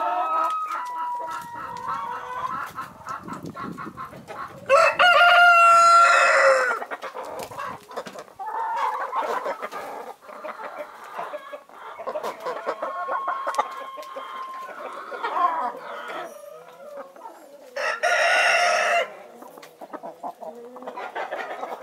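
Backyard chickens clucking throughout, with a rooster crowing loudly twice: a long crow about five seconds in and a shorter one near the end.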